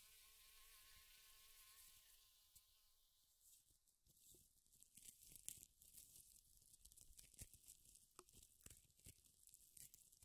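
Faint high whine of a mosquito in flight that fades out after about two seconds, followed by faint scattered crackling and rustling clicks.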